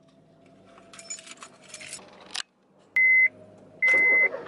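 Keys jangling and rustling, then two loud high electronic beeps, a short one followed by a longer one.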